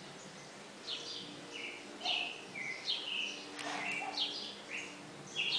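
Birds chirping repeatedly in short, high calls that drop in pitch, about two a second.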